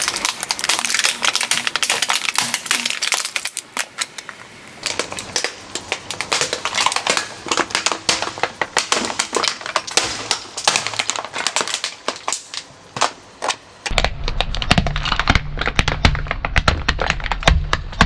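Hard plastic toy cracking and snapping under a slowly rolling car tyre: a long run of sharp, irregular cracks and crunches as the pieces break apart. A low rumble joins in about two thirds of the way through.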